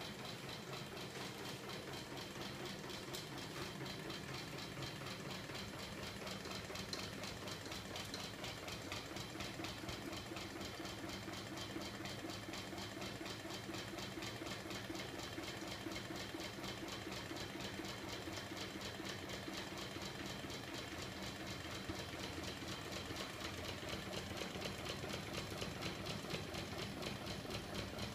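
Homemade magnet crank machine running, a small electric motor turning its heavy flywheel and magnet-tipped crank arm, with a steady whir and fast, even mechanical ticking.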